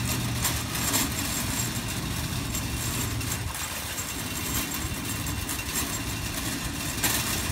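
Metal shopping cart rolling across an asphalt parking lot, its wheels and wire basket rattling steadily with small knocks.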